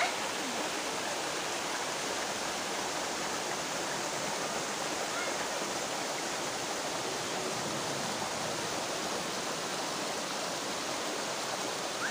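Running water from a rocky stream and falls: a steady, even rush with no breaks.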